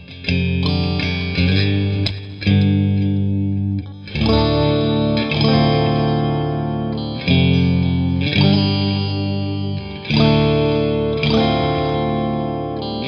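Fender electric guitar playing chords, a new chord struck every second or two and left to ring.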